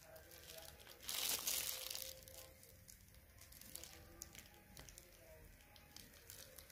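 Clear plastic wrapping around a speaker crinkling as it is handled, with a louder rustle about a second in and faint scattered crackles after.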